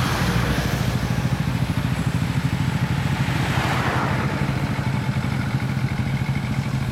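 A 2014 Kawasaki Ninja 400 parallel-twin idling steadily with an even low pulse through its Sansei Racing aftermarket exhaust. A car drives past about three to four seconds in.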